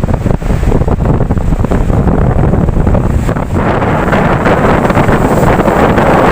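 Ocean waves washing in, with wind rumbling on the microphone. A wave breaks about halfway through and its wash swells and stays loud.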